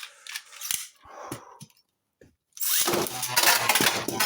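Light clicks and rattles of Beyblade launchers being readied, then about two and a half seconds in a sudden loud onset as two 3D-printed Beyblades are launched and spin, grind and clash against each other in a plastic stadium.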